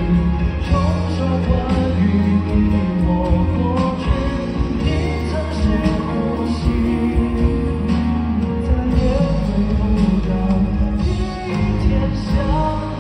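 Male singer singing a pop ballad live into a microphone, backed by a band of keyboard, electric guitar and bass guitar, with a steady bass line under the vocal.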